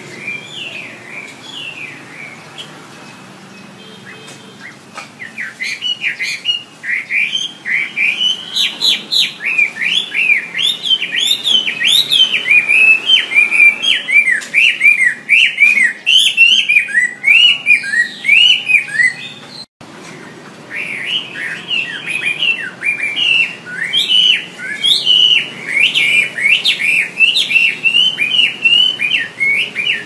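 Chinese hwamei (melodious laughingthrush) singing: a loud, rapid run of varied whistled phrases that starts about five seconds in. The song cuts off abruptly for about a second near the middle, then resumes.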